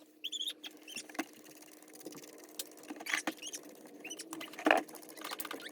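Trigger spray bottle of gel rust remover being worked over small rusty parts: a run of irregular clicks and short squirts, over a faint steady hum.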